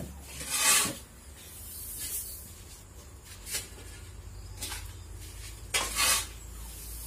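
Metal shovel scooping and scraping through a pile of unhusked rice (palay) on a concrete floor, turning the damp grain to dry it. There are short grainy swishes about half a second in, twice in the middle, and a longer one near six seconds.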